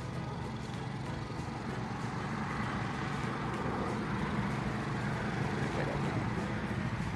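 Small 125cc four-stroke ATV engine running steadily as it is driven, gradually getting louder.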